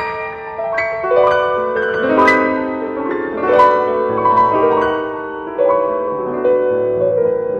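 Piano music: a flowing run of struck notes, several a second, over held lower notes.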